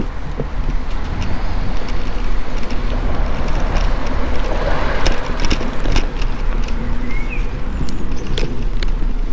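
Bicycle rolling over asphalt and then paving stones: a steady rumble of tyres and road vibration with scattered rattling clicks from the bike.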